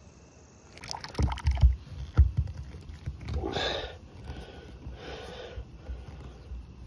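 A few dull knocks and thumps, the loudest part, then two short swishes of water sloshing at the pool wall beside a wall return fitting.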